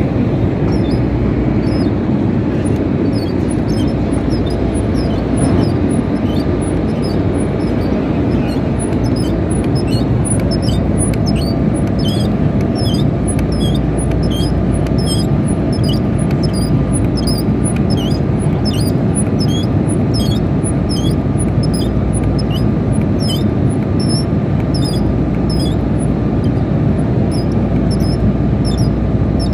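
Hydraulic pump building pressure in a bolt tensioner. A steady mechanical noise runs under a short, high squeak that repeats about twice a second.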